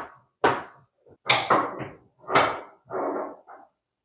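A dog barking repeatedly, about eight sharp barks in quick succession, stopping near the end.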